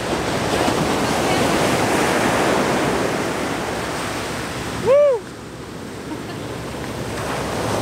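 Ocean surf breaking on a sand beach: a steady rush of waves. About five seconds in, one short call that rises and falls in pitch stands out as the loudest sound.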